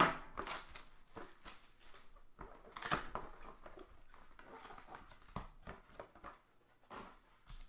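Cardboard trading-card box being handled and opened by hand: irregular rustling, scraping and light knocks of cardboard, loudest about three seconds in, as the box is lifted and its sleeve slid off the foil-wrapped pack inside.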